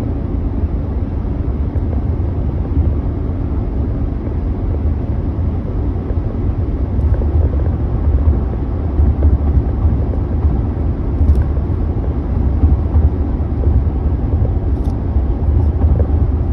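Steady low rumble of an SUV being driven, heard from inside the cabin: engine and road noise, growing a little louder in the second half.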